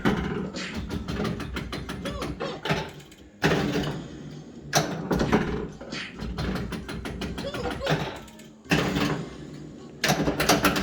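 Sega South Park pinball machine in play: rapid mechanical clacks and knocks from the flippers, solenoids and ball, mixed with the game's voice clips and sound effects.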